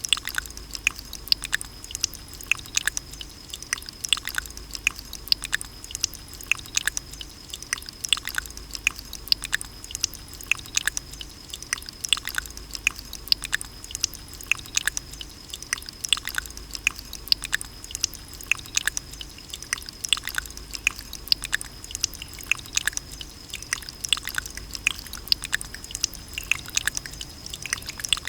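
Water droplets dripping and ticking close to the microphone: a dense, irregular patter of sharp clicks, several a second, over a steady high thin tone and a low rumble.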